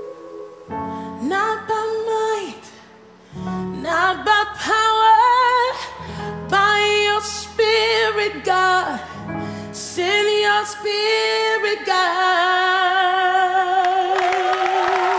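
Recorded gospel song with a female lead voice singing long, held notes with vibrato over steady low chords. Applause starts to rise near the end.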